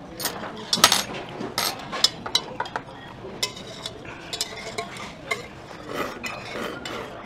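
Cutlery clinking and scraping against bowls and dishes during a meal: a run of sharp, irregular clinks, the loudest about a second in.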